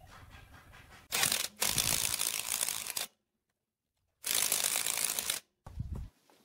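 Cordless impact wrench hammering in two bursts, about two seconds and then about one second long, driving home the bolt that holds a belt pulley on an electric motor's shaft. A brief low thump near the end.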